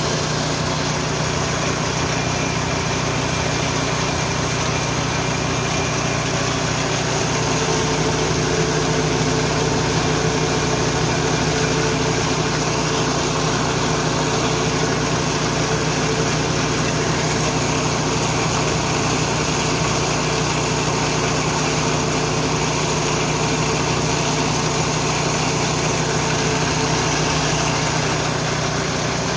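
Richi KD 350 mini rice and corn mill running steadily under engine drive, a constant loud mechanical drone with a low hum. A slightly higher tone joins about seven seconds in and holds.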